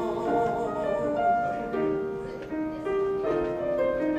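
Piano playing a melodic accompaniment passage, a succession of single held notes.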